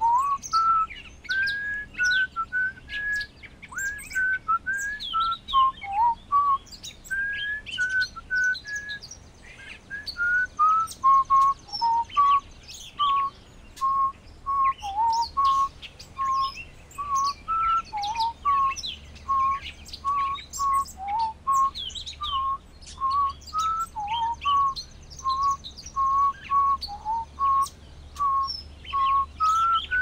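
A clear whistled call, one pure note repeated about twice a second, pitched higher for the first ten seconds, then settling a little lower and steady with an occasional downward dip. Other songbirds chirp faintly and higher behind it.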